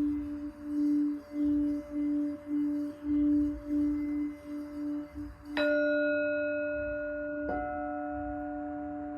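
Singing bowl sounding a sustained, wavering tone that swells and fades about twice a second. About five and a half seconds in it is struck and rings out with bright overtones, and a second, higher-pitched bowl is struck softly about two seconds later, both ringing on together.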